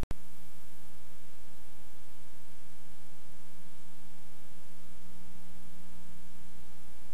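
Steady electrical hum and buzz under a constant hiss, held without change, after a brief click at the very start.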